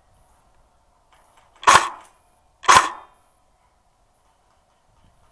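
Two single shots from an airsoft rifle, about a second apart, each a sharp crack with a brief tail.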